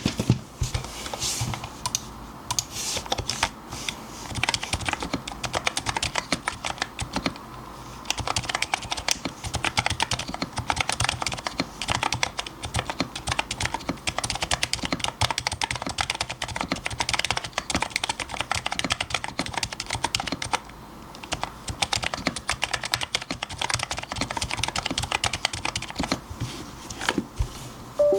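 Fast, continuous typing on a Topre-style electro-capacitive keyboard built with Dynacaps housings, 30 g Topre rubber domes and an aluminium top-mount plate, with lubed sliders. Dense keystroke clicks with a couple of brief pauses, one about 8 seconds in and one about 21 seconds in.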